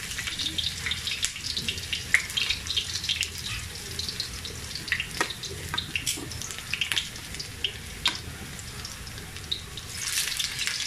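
Carrot cubes frying in oil in a wok, a steady sizzle with crackling spits, and a few sharp clicks of metal tongs against the wok.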